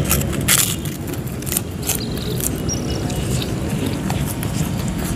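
Close-up mouth sounds of eating meatballs in spicy sauce: wet chewing with sharp smacks and clicks, the loudest about half a second in.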